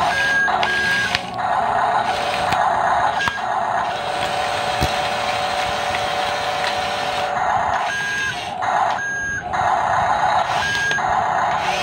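Toy RC bulldozer's built-in electronic sound effects from its small speaker: a buzzy engine noise that repeatedly cuts out and starts again, with short beeps.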